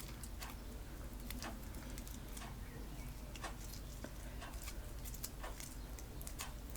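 Homemade PVA glue and bicarbonate soda slime being kneaded and pulled by hand, giving irregular faint sticky clicks and smacks, about one to three a second; the slime is rubbery rather than stretchy.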